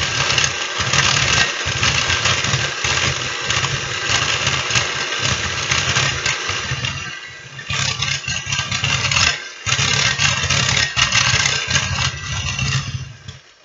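Electric hand mixer running on high speed, its beaters whisking still-liquid heavy cream in a glass bowl. The motor sound dips briefly twice in the middle and cuts off just before the end.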